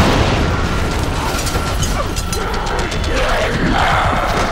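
Film soundtrack: mechanical clicking and rattling over a dense effects mix with music and a low rumble.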